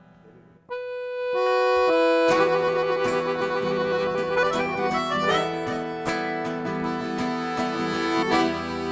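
Instrumental intro of a gaúcho song. An accordion enters with a held note about a second in and climbs through a few notes, then the full band joins with strummed guitar under the accordion's melody.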